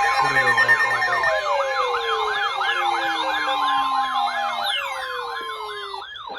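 Several electronic sirens sounding at once, each with a fast rising-and-falling wail of about three sweeps a second, over a steady two-tone alarm tone that stops about four and a half seconds in. A couple of lower tones slide slowly down in pitch.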